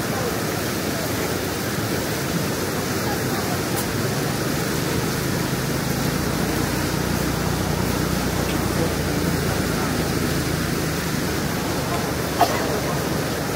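Floodwater pouring over a dam embankment under construction: a steady rush of flowing water, with a short click near the end.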